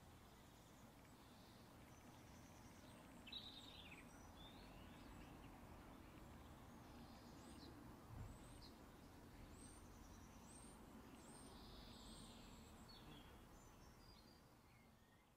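Faint birds chirping over a steady low hiss, with a short run of high chirps near the end and a soft thump about eight seconds in.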